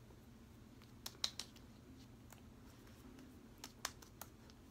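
Faint scattered light taps and clicks of fingertips patting and smoothing serum into facial skin, a quick cluster about a second in and a few more near the end.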